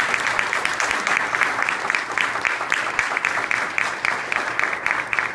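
Audience applauding: many hands clapping steadily and without a break.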